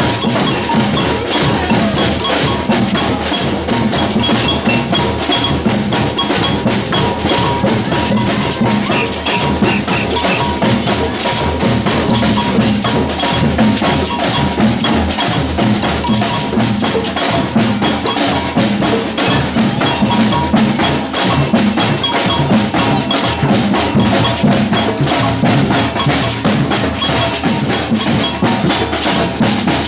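Batucada percussion ensemble playing a dense, steady samba rhythm, loud and unbroken.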